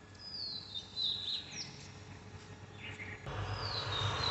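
Birds calling in a garden: a few short whistled calls that slide downward in pitch, twice in the first second and a half and once more near the end. About three seconds in, a steady hiss with a low hum comes in.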